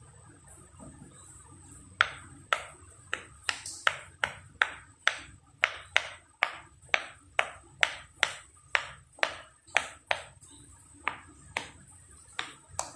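Silicone Pop It fidget toy bubbles being pressed, popping one after another at about two to three a second starting about two seconds in. The pops then slow to a few scattered ones near the end.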